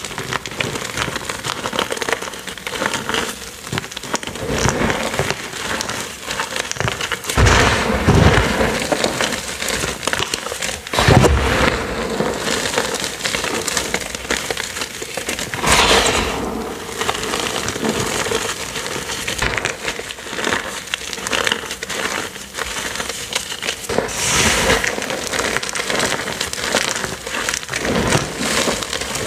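Hands squeezing and crushing crumbled gym chalk dusted with cornstarch: a steady, dense crunching crackle, with a few louder crunches as handfuls are squeezed.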